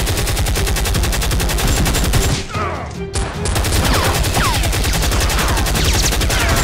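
Dubbed-in automatic gunfire sound effect: rapid machine-gun fire laid over toy blasters, breaking off briefly about halfway through and then resuming.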